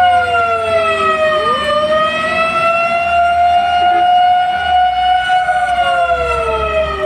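Fire engine siren wailing loudly, two siren tones overlapping. One holds a high wail that slowly rises and falls, while the other sweeps downward and snaps back up, once early on and again as it falls near the end.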